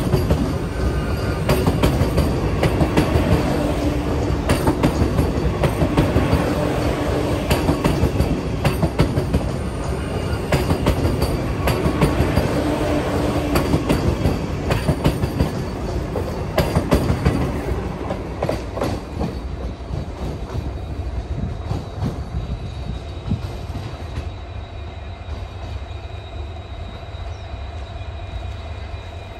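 Vande Bharat Express electric train set pulling out, its coaches rolling past close by with wheels clicking in a quick, repeated clatter over the rail joints above a low rumble. The clatter thins out and fades over the last ten seconds as the train draws away.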